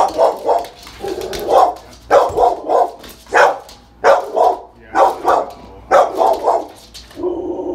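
American Staffordshire terrier barking repeatedly in quick runs of two or three, about once a second, with a longer drawn-out bark near the end. It is the dog's intimidating barking at a visitor entering the house.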